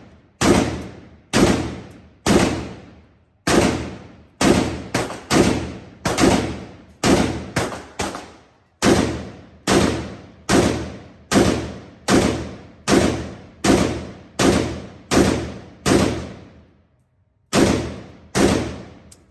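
About two dozen single shots from a short-barrelled AK-pattern pistol in 7.62×39, fired at an uneven semi-automatic pace of roughly one to two a second with a brief pause near the end. Each sharp report trails off in a long echo.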